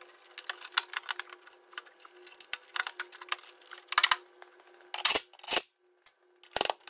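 Thin embossed metal exhaust heat shield crinkling and clicking as it is pushed and adjusted by hand: irregular light crackles with a few louder clicks toward the end.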